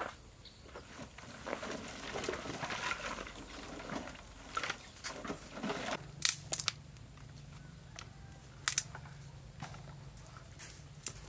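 Rustling and crinkling for the first six seconds, followed by a few scattered sharp clicks and taps.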